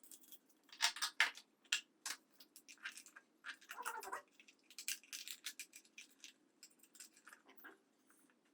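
Hands working at an electrical breaker box: irregular clicks, scrapes and light knocks of small parts being handled, over a faint steady hum.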